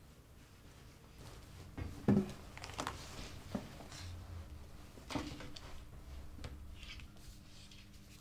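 A manila folder and papers handled on a tabletop: a few light knocks and rustles, over a faint steady electrical hum.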